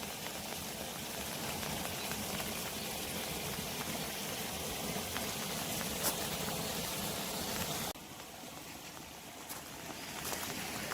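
Steady rushing, watery noise, like running water, that cuts off abruptly about eight seconds in, leaving a quieter hiss with a few faint clicks.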